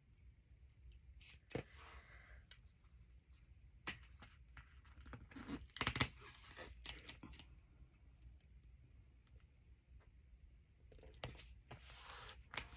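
Washi tape being pulled off its roll and laid across a paper page, with faint scattered taps and rustles and a louder clatter of handling about six seconds in.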